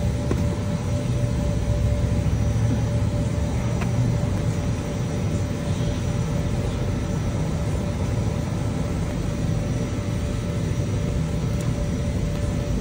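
Steady low vehicle rumble with a faint constant hum running through it.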